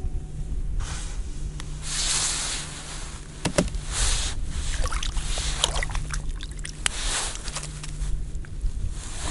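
Water sloshing in an ice-fishing hole as a fish is drawn up through it by hand, then a run of sharp slaps and taps as the fish flops on the ice, with the rustle of clothing as the line is hauled in.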